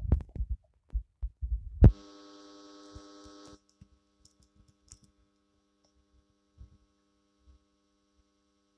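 Soft low thumps and taps, typical of ASMR handling close to the microphone, ending in a sharp knock about two seconds in. A steady buzzing hum with several tones follows, cuts off after about a second and a half, and is followed by a few faint, scattered taps.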